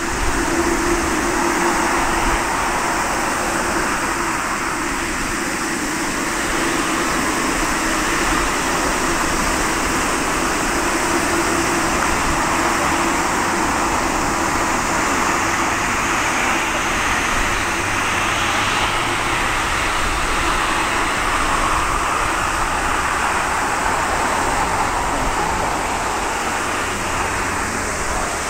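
Jet airliner engines running: a steady rushing noise with a low hum underneath, swelling a little about two-thirds of the way through.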